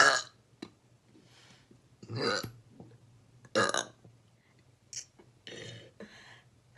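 A person belching: the end of a loud burp at the start, then two short burps about two and three and a half seconds in, with a few fainter throaty sounds near the end.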